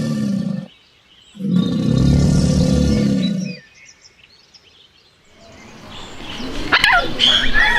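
Two long, low calls from a large farm animal, each about two seconds, with a pause between. Near the end, higher chicken calls start up.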